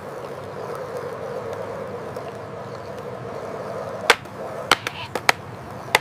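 Veo 3–generated sound of skateboard wheels rolling steadily on asphalt, with a few sharp clicks between about four and five seconds in.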